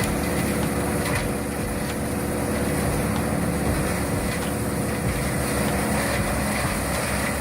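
Wood chipper's engine running steadily.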